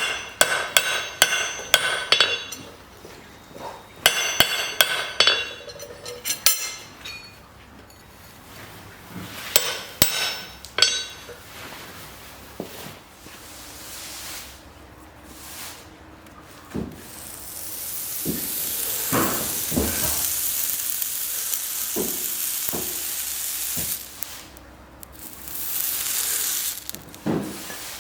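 Fast runs of hammer blows on metal, each ringing, as a farrier's hammer works a horseshoe, followed by scattered knocks. Later comes a steady hissing noise lasting several seconds, then a second shorter stretch of it.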